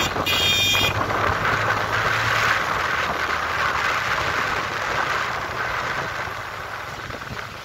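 Steady engine, road and wind noise from a vehicle travelling along a mountain road, easing slightly toward the end. A horn beeps during the first second.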